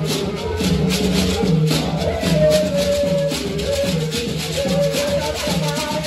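Many calabash gourd rattles shaken together in a steady quick beat, about four to five strokes a second, with a group of voices singing along.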